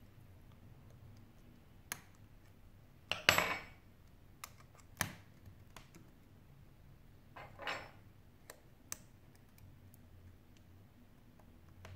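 Scattered small clicks and taps of a metal pry tool and fingers working on the internals of an opened Sony Xperia Z5 Compact smartphone, with a short metallic clatter about three seconds in as the tool is set down on the desk and another small rattle of handling near eight seconds.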